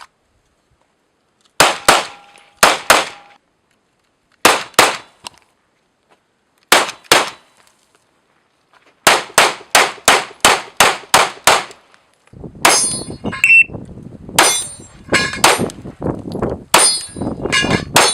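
Sig Sauer P320 compact 9mm pistol firing: double taps spaced a second or two apart, then a quick string of about nine shots. In the last few seconds the shots come with a high metallic ringing and clanging.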